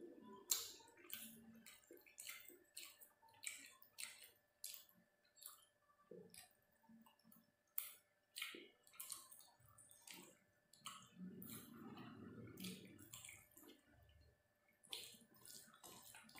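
Soft, irregular wet squelches and clicks of fingers kneading basmati rice into thick chicken curry gravy on a steel plate.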